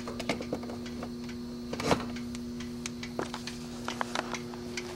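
Steady electrical hum from a Schumacher SE-2158 battery charger's transformer as it charges a car battery on the 12-volt 2-amp setting, with scattered light clicks and handling knocks, one louder knock about two seconds in.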